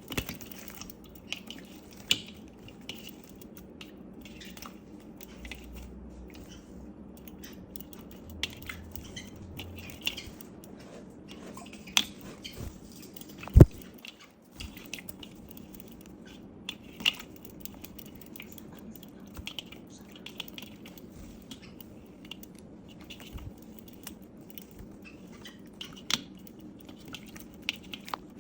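A pet lovebird eating pineapple: scattered small clicks and crunches from its beak, with one sharp knock about halfway through, over a faint steady hum.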